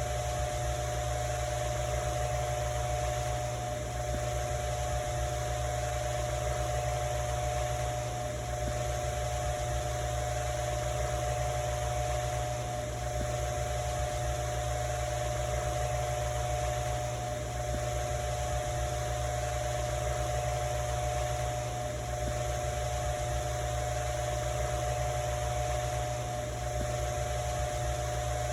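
Ventisol electric fan running steadily: a constant motor hum with a pitched whine and the even hiss of moving air, dipping slightly about every four and a half seconds.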